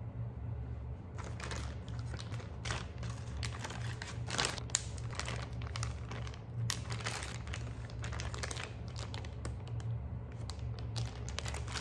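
Plastic zip-top storage bags crinkling and rustling in the hands as they are handled and pressed shut, a dense irregular crackle that starts about a second in, over a steady low hum.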